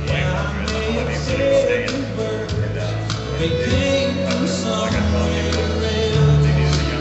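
Live band music: a country-rock song with steady bass notes, guitar and singing.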